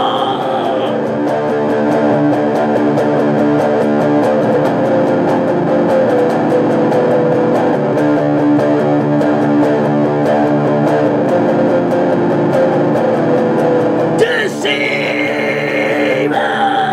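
A guitar plays a picked heavy-metal riff without words for most of the stretch. A man's shouted, screaming vocal comes in near the end.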